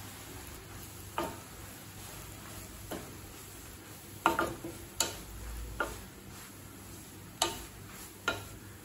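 Spatula stirring bread pieces in ghee in a kadai, knocking and scraping against the pan about seven times at irregular intervals, over a faint steady sizzle of the bread frying.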